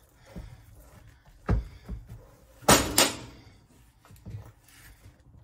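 A knife being forced down through a tough raw butternut squash, with the squash and blade knocking against a plastic cutting board in a series of thuds. The loudest are two sharp knocks close together about three seconds in.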